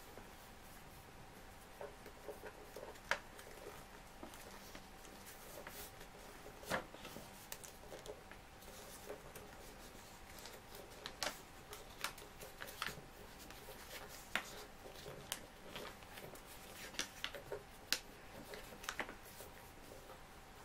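A sheet of printer paper being folded and creased by hand: scattered crisp crackles and taps as the edge is turned over and pressed flat, over a faint steady hum.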